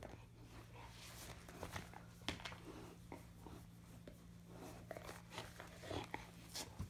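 Faint scattered clicks and rustles as an American Akita puppy mouths a hard plastic ball and is stroked, with a sharper click a little past two seconds in and a few more near the end. A steady low hum runs underneath.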